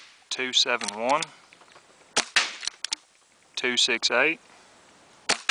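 Sterling pump paintball marker powered by a 12-gram CO2 cartridge firing: a sharp pop about two seconds in, followed by a few quick clicks, and another pop near the end.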